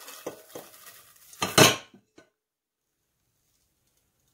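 Popped popcorn tumbling from a metal pot into a bowl with a light crackly rustle, then one loud clatter of the pot about one and a half seconds in.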